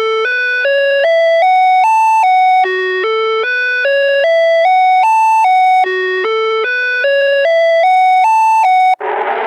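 Electronic chime melody of clear single notes climbing a scale and dropping back, the same short phrase repeating about three times, as the alert tone of a fan-made emergency alert system alarm. Just before the end it breaks off into a loud, distorted buzzing with sliding pitches.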